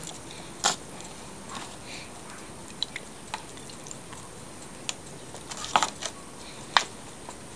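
Raw chicken leg quarters being laid and pressed into a disposable aluminium foil baking pan over cut vegetables: a handful of scattered soft wet clicks and crinkles of the foil pan and chicken skin, over a faint steady hiss.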